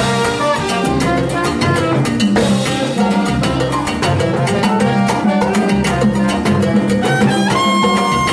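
Live salsa band playing, with timbales and congas driving a dense, busy rhythm over a pulsing bass line. A sustained high note comes in about seven and a half seconds in.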